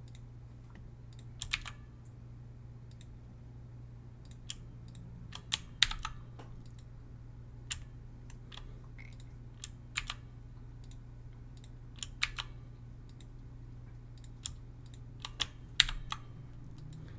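Computer keyboard keys and mouse buttons clicking at irregular intervals as shortcuts are pressed, over a steady low hum.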